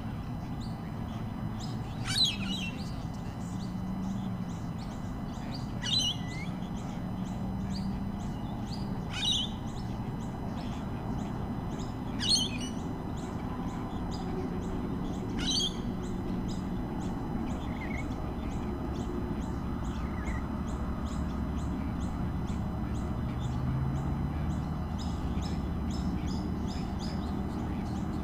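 Bird calls: five short, sharp calls sliding downward, about every three seconds, over a fast, high chirring that fills the second half, with a low steady hum underneath.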